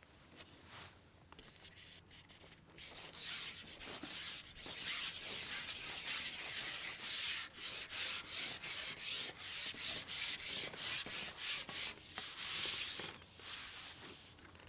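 Carbon fishing pole being shipped out hand over hand: the pole sliding through the hands in repeated rubbing strokes, about two a second, starting about three seconds in and stopping a little before the end.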